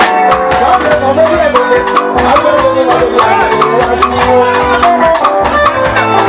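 Live band music amplified through a PA: a drum kit keeps a quick, steady beat under guitar lines, with a man singing into a microphone.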